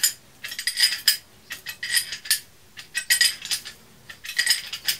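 Handheld brake pipe flaring tool being worked on copper brake pipe to form a double flare: short bursts of metallic clicks and clinks, about one burst a second.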